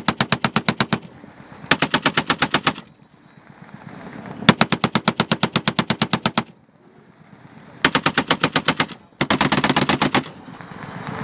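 Browning M2 .50 calibre heavy machine gun firing five bursts of automatic fire, about ten shots a second, the longest burst nearly two seconds in the middle.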